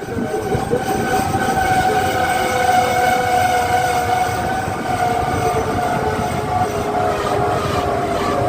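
Train running, a steady rumble with a held whining tone over it that shifts slightly lower about five seconds in.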